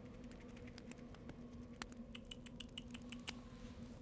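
Foley rats scurrying: quick, irregular little clicks of claws on a hard floor, with a run of short high squeaks about two to three seconds in, over a faint steady low hum.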